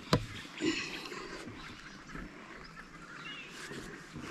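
Hands working thread tape onto a threaded black poly pipe fitting: one sharp click just after the start, then quiet handling. Birds chirp faintly in the background.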